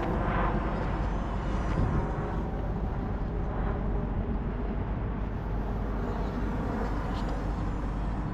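Steady outdoor background noise: a continuous low rumble with a hiss over it and no distinct event.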